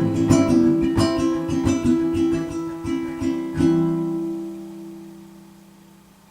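Ukulele playing the closing phrase of a song, a run of plucked notes ending in a final chord a little over three and a half seconds in that rings out and slowly fades away.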